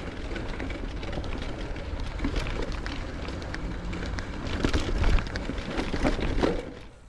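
Mountain bike riding over dirt single track: a steady rush of tyre and wind noise with a low rumble on the microphone, and quick clicks and rattles from the bike over the rough ground. The noise drops off sharply just before the end as the bike slows.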